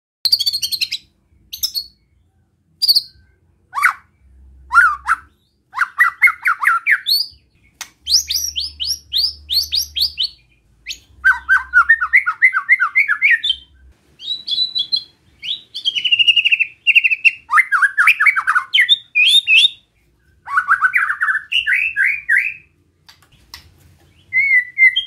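Caged white-rumped shama giving besetan: phrase after phrase of rapid, rasping, rattling notes, each run a second or two long with short pauses between. This is the agitated challenge call that stirs up other shamas.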